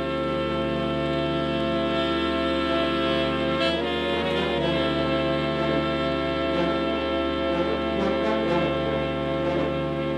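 Background music of long held chords, the harmony shifting about four seconds in.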